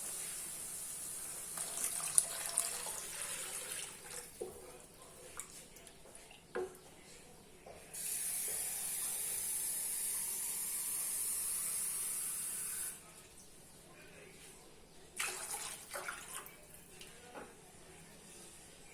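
Sautéed onions and carrot sizzling quietly in the pan with a few clinks of a utensil, then a steady stream of water running for about five seconds from about eight seconds in, followed by more clinks of metal utensils.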